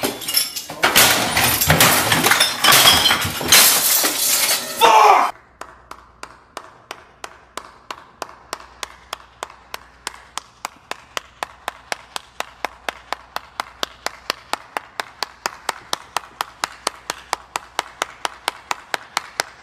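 Loud crashing and smashing as things in a room are thrown and broken, for about five seconds. Then one person clapping slowly and evenly, about four claps a second, to the end.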